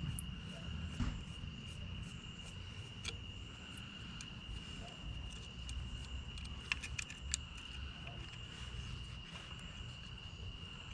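Steady high-pitched drone of night insects calling in the trees, with a few light clicks and taps scattered through it, a small cluster of them about seven seconds in.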